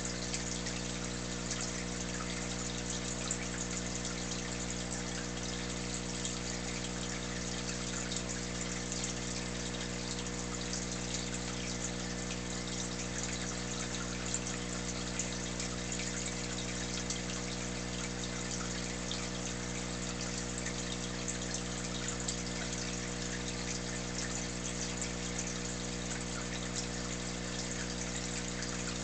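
Aquarium pump humming steadily, with water bubbling and trickling.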